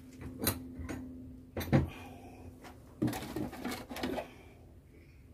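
Metallic clicks and knocks from working a pedal onto a bicycle crank arm by hand and tool: a few sharp clicks in the first two seconds, then a burst of rattling knocks about three seconds in.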